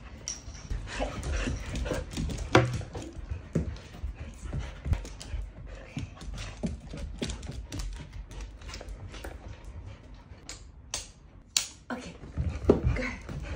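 A dog panting and whimpering with excitement, over many irregular clicks and knocks from the dog wheelchair's frame and harness clips being handled and fastened.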